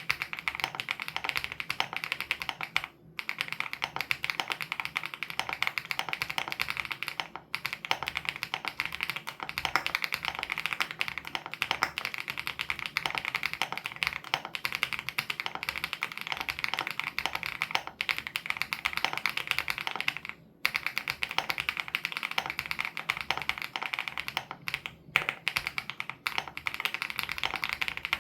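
Steady, fast typing on a WOB Crush 80 Reboot mechanical keyboard with Hyacinth switches: a dense run of key presses broken by a few short pauses, about 3, 7 and 20 seconds in.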